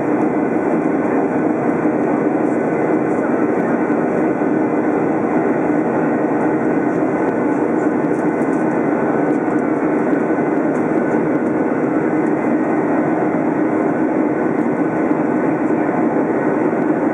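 Boeing 737 cabin noise in flight, heard from a window seat beside the CFM56 turbofan engine: a loud, unbroken rush of engine and airflow with a few faint steady hums in it.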